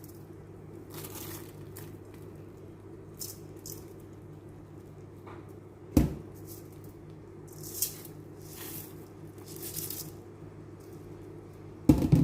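Kitchen food-preparation sounds: short scraping and rustling noises over a steady low hum, with a sharp knock of a utensil or dish about six seconds in and a few louder knocks near the end.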